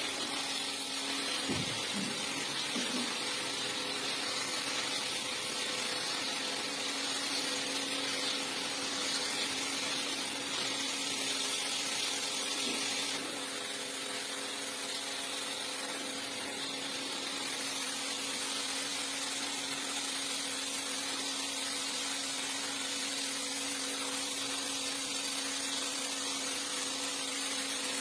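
Motor-driven rug-cleaning machine running steadily with a hum and a wide hiss. It gets slightly quieter about thirteen seconds in.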